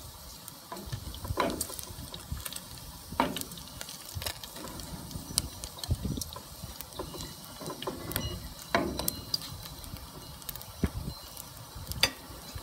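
Pork belly pieces frying in rendered fat in a wok, sizzling with frequent sharp pops and crackles. A wooden spoon scrapes and knocks against the pan now and then.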